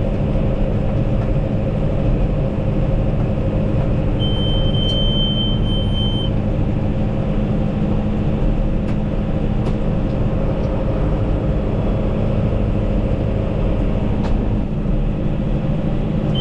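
John Deere tractor's diesel engine running steadily with the round baler in tow, heard from the cab. About four seconds in, a single high beep sounds for about two seconds.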